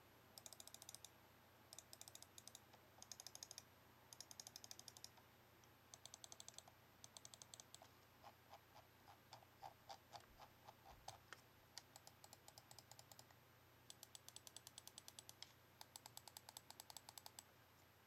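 Cougar 200M gaming mouse buttons being clicked in quick bursts of rapid clicks, with a stretch of slower single clicks in the middle.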